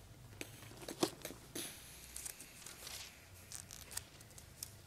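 Faint rustling of paper Bible pages being leafed through, with a few soft clicks and taps, the sharpest about a second in.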